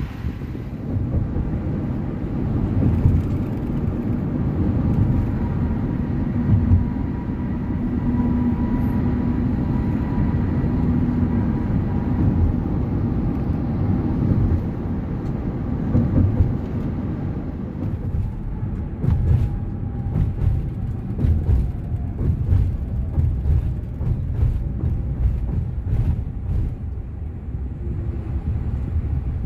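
Cabin noise of a Toyota HiAce Premio shuttle van on the move: a steady low rumble of engine and tyres on the road. Scattered short clicks and knocks come in over the second half.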